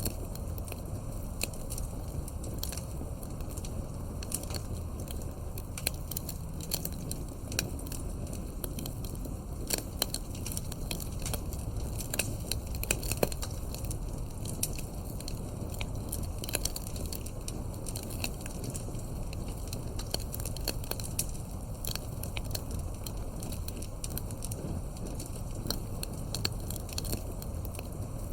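Wood fire crackling in a fireplace: frequent sharp pops and snaps over a steady low rumble of the burning.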